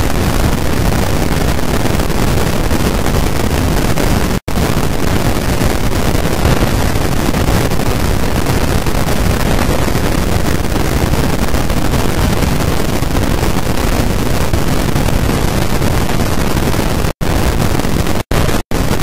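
Loud, steady hiss like static or white noise, spread evenly across low and high pitches, cutting out to silence for a split second about four seconds in and three times near the end.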